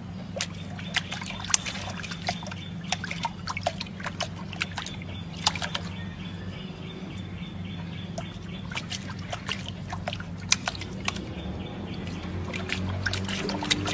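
Irregular small splashes and drips of water in a stone basin as a puppy dabbles at it with its paws and muzzle, over a steady low hum.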